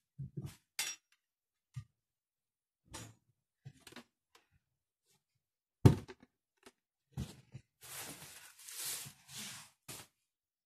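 Small household objects being picked up, moved and set down while tidying: scattered knocks and clinks, with a sharp thump about six seconds in. Near the end comes a rough noise lasting about two seconds.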